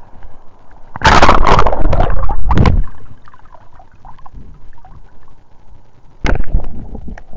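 Sea water sloshing and splashing against a camera held at the surface, with a loud splashing wash from about a second in lasting nearly two seconds and another short splash near the end.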